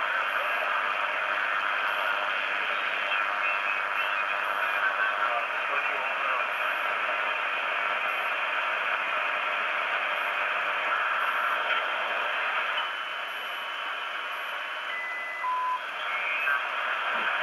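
ICOM IC-PCR1000 shortwave receiver in lower sideband with a narrow 2.8 kHz filter, tuned down across the 40 m amateur band: a narrow band of hiss and static with faint garbled sideband speech. Near the end come brief steady whistles, each lower in pitch than the one before, as carriers slide past while tuning.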